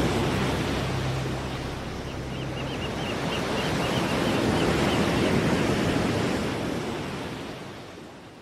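Waves washing on a shore: a steady rushing noise that swells and then fades out near the end.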